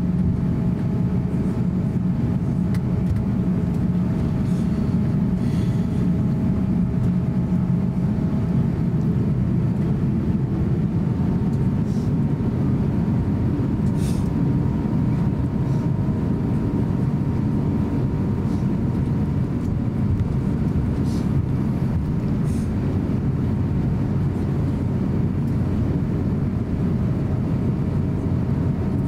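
Cabin noise of an Airbus A350-900 taxiing: a steady low rumble with a faint steady whine above it and a few light clicks.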